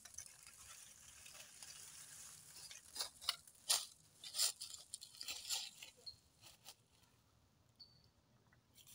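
Footsteps crunching through dry fallen leaves: a run of sharp, irregular rustling crunches for a few seconds, starting about three seconds in, then stopping.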